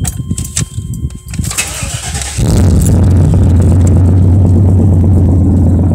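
A 1995 Chevrolet pickup's engine is started with the key, with keys jingling at first. The starter cranks briefly, and the engine catches about two seconds in, then runs steadily and loudly.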